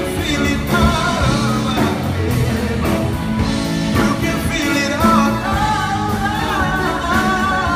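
Live rock band playing a song, with drums, electric guitars and keyboard under a sung lead vocal.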